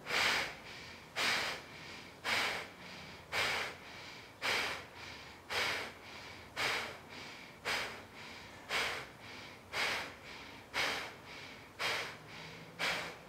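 A woman doing kapalabhati (breath of fire): forceful exhales pushed out through the nose in a steady rhythm, about one a second, each a short sharp puff that fades quickly.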